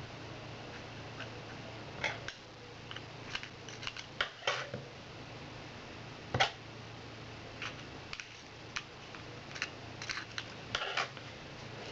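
Scattered light clicks and taps of a metal Zippo lighter insert being handled while cotton wadding is tamped into it, the sharpest knock about six seconds in, over a low steady hum.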